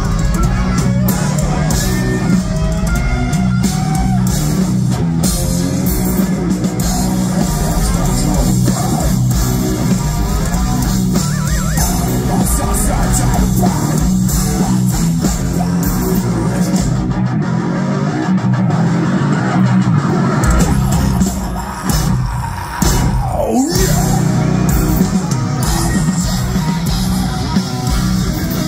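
Heavy metal band playing live, with distorted electric guitars and drums, heard loud from within the crowd. About two-thirds of the way in, the deep bass drops out for a few seconds before the full band comes back in.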